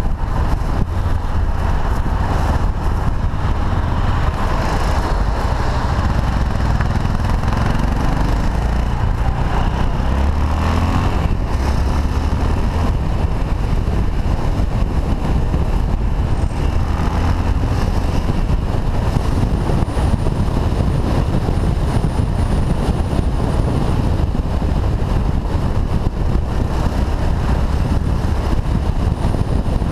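Motorcycle engine running on the road, with wind rumbling over a helmet-mounted camera microphone. The engine note rises and falls a few times in the first ten seconds.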